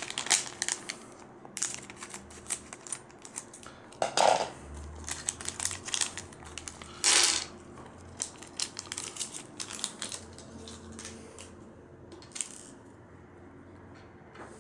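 A plastic Lego minifigure blind-bag packet crinkling as it is handled and opened, with small hard plastic Lego pieces clicking and clattering together. There are louder crinkles about four and seven seconds in.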